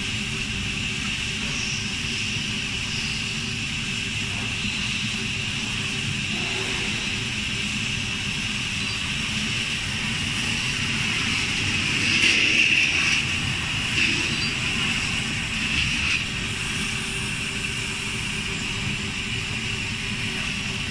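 Commercial gas-heated popcorn machine running steadily while its kettle heats the oil, with a few brief louder noises about halfway through.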